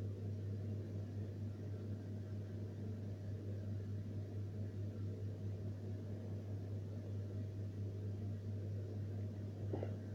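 Steady low hum under a faint hiss, with a small tick near the end.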